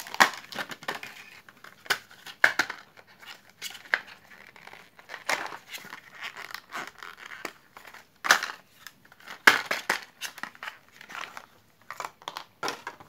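Clear plastic blister pack being opened and handled: irregular crinkling and crackling of stiff plastic and a plastic bag, with sharp snaps every few seconds.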